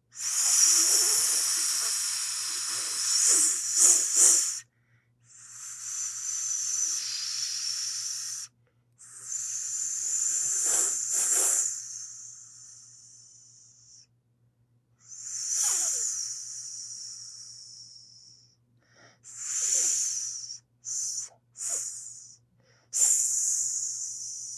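Snake hissing: a run of about eight hisses, most drawn out over a few seconds and fading, with a few short, quick ones near the end.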